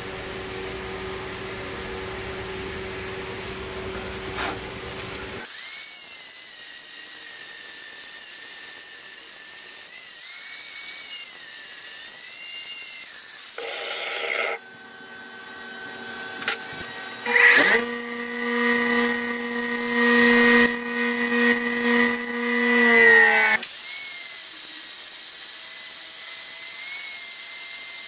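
Angle grinder grinding down the steel of an old Craftsman ratchet held in a vise. A steady hum at first, then from about five seconds in a loud grinding hiss with a wavering whine. The grinding breaks off about halfway, gives way to a stretch where the motor's whine rises and falls unevenly, then returns steadily near the end.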